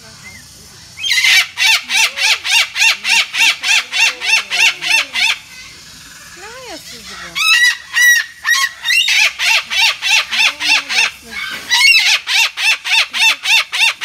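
Cockatoo calling loudly in fast runs of harsh, evenly repeated screeches, about five a second. The calls come in three bouts with short pauses between them.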